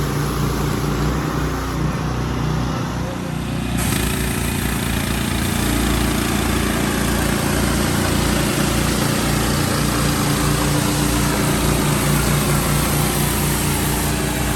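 Engine-driven pressure washer running steadily: a small engine's drone under the loud hiss of the water jet. The sound changes abruptly about four seconds in.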